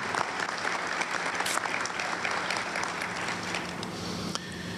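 Audience giving a round of applause, dense clapping that thins slightly near the end.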